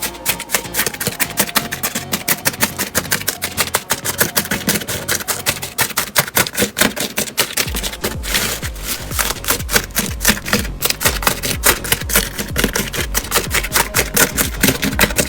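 Slime being squeezed and pressed by hand, a fast, uneven run of crisp clicks and pops, over background music whose bass comes in about halfway through.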